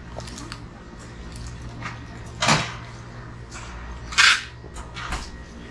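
Background noise of a covered market hall: a steady low hum under faint general noise, with two short, sharp hissing or rustling sounds about two and a half and four seconds in.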